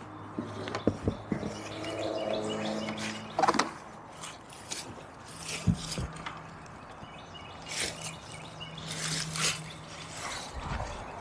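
Handling noise from a solar panel being lifted off a wooden table and set down on dry leafy ground: scattered knocks and clicks with rustling, and two sharper knocks in the middle. Birds chirp faintly in the background.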